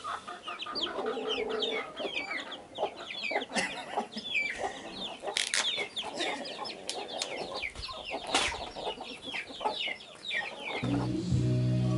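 Chickens clucking, with a dense run of quick, high, falling chirps and a few sharp knocks among them. Background music comes in near the end.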